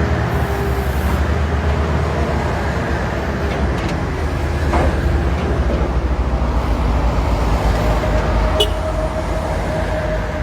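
Diesel engines of heavy earthmoving machinery running steadily with a deep rumble, with a faint knock near the middle and another near the end. A thin steady whine joins in for the last few seconds.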